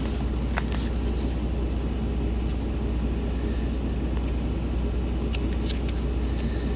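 Steady low rumble of an idling vehicle engine, with a few faint clicks of trading cards being handled near the start and again near the end.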